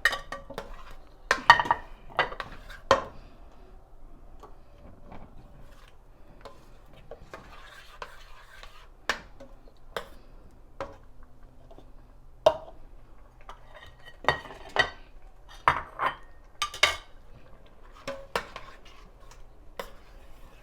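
Utensils clinking and knocking against a cooking pot and dishes while chopped green pepper is added and stirred in: irregular sharp clinks, some in quick clusters, with short ringing.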